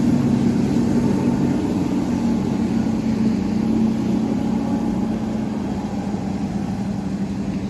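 Engines of a Pursuit motorboat running steadily as it passes through the inlet, a low hum that slowly fades as the boat moves away.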